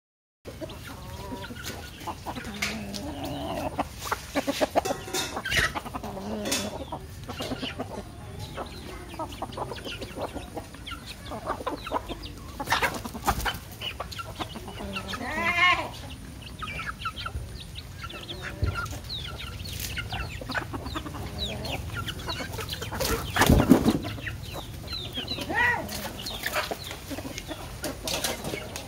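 A flock of chickens clucking while pecking at scattered rice on concrete, with short calls and sharp taps throughout. A louder call comes about halfway through, and the loudest one a little later.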